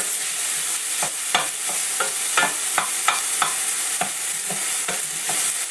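Diced bacon and onion sizzling in a stainless steel frying pan, with a wooden spoon stirring and scraping against the pan in short, irregular strokes.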